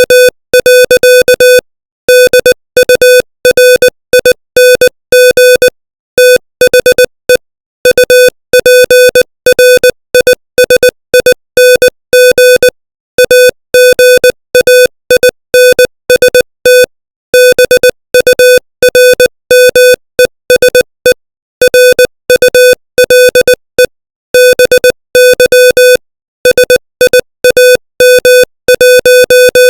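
Morse code at 20 words per minute: a single buzzy electronic tone keyed on and off in dots and dashes, with short gaps between letters and longer pauses between words.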